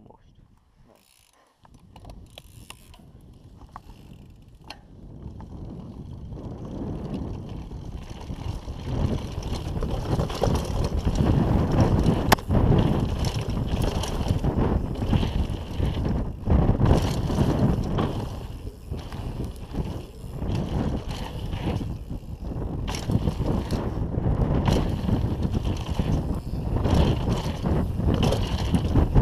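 Wind buffeting a helmet-mounted camera's microphone as a downhill mountain bike descends a dirt trail, with its knobby tyres rumbling over the ground and the bike rattling and knocking over bumps. The noise starts faint and builds over the first ten seconds as the bike picks up speed, then stays loud with frequent sharp knocks.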